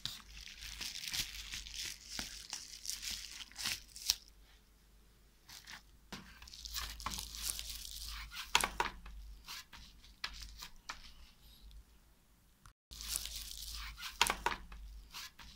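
Plastic rustling with scattered light clicks as hands handle the opened laptop, its newly fitted battery and the bubble wrap beneath it, in three stretches.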